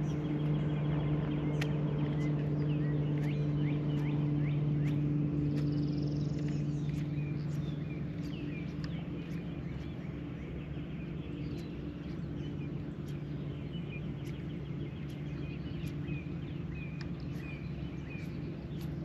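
Birds chirping repeatedly over a steady low hum, which eases a little about eight seconds in.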